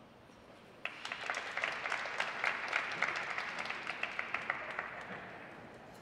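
A small audience applauding, with individual hand claps audible. It starts suddenly about a second in and fades away over the next few seconds.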